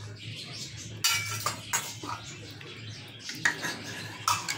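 A ladle clinking and scraping against a cooking pot while stirring a thick curry, with several sharp knocks, over a low steady hum.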